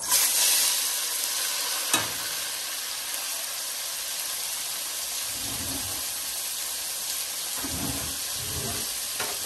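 Chopped onion, green pepper and tomatoes dropped into hot oil in a pot, sizzling loudly at once and then settling into a steady frying hiss. A single light knock about two seconds in.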